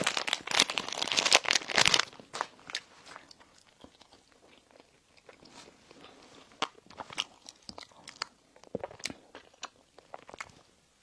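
A person bites into a crisp baked pastry close to the microphone, with a loud crackling crunch for about two seconds, then chews with softer, scattered crunches.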